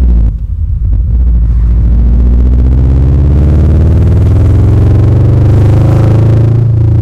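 Subaru Impreza 2.5RS flat-four engine through an aftermarket Tsudo header, high-flow cat and exhaust: a loud, deep exhaust note. It drops briefly about a second in, then rises steadily in pitch as the revs climb, and falls off near the end.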